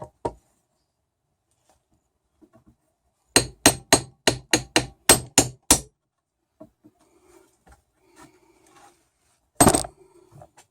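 Hammer strikes on wood: a quick run of about nine taps, then one louder strike near the end, as a glued dowel that is a little too big is knocked out of a wooden tiller.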